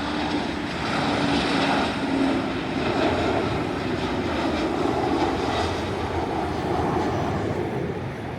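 Jet airliner flying low overhead on its approach to land, a steady engine rush with a low tone that drops slightly in pitch in the first couple of seconds.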